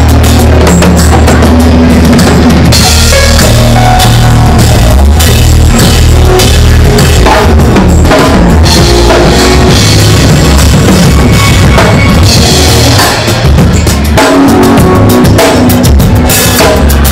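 Live band playing very loud in a club, with a drum kit's bass drum and cymbals to the fore over heavy, sustained bass.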